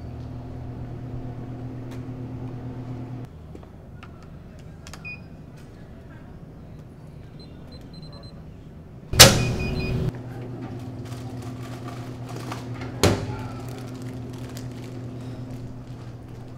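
A snack vending machine being used. A few short keypad beeps, then a loud clunk and about a second of mechanical whirring as it dispenses, and a second clunk about four seconds later, over a steady low hum.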